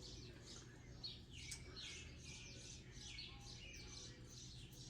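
Faint birds chirping in the background: many short, high chirps, one after another.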